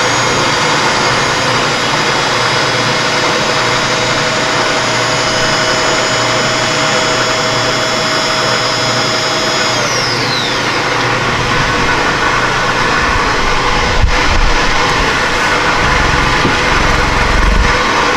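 Electric motor on a milling machine whining steadily at speed, then winding down with a falling pitch about ten seconds in. A sharp knock follows a few seconds later, over low rumbling noise.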